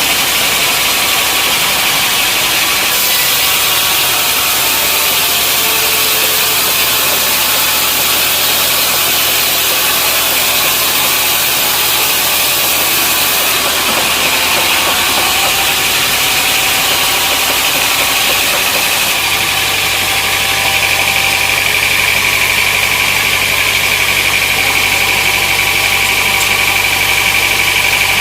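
Sawmill machinery running steadily: an engine's drone under loud, constant noise, the low drone growing stronger about two-thirds of the way through.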